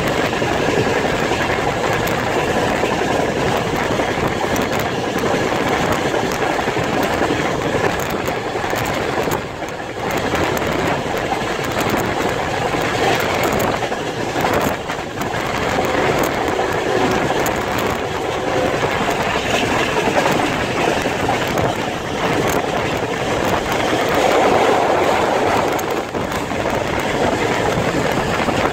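Passenger train running at speed, heard from inside a carriage: a steady rumble and rattle of wheels on the rails.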